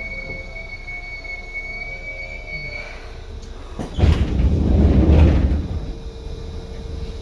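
Seibu 2000 series electric train heard from on board: steady high-pitched whining tones from the running gear end about three seconds in. About four seconds in, a loud rushing noise lasts about two seconds, and then a steady lower hum carries on.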